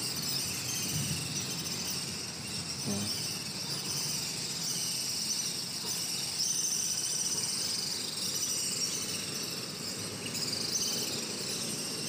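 Insects trilling in a steady, high-pitched chorus.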